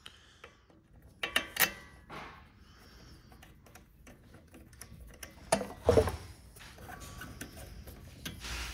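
Hand ratchet and socket tightening the bolts of a turbo diverter valve: scattered ratchet clicks and metal clinks, with louder clinks about a second and a half in and again around six seconds.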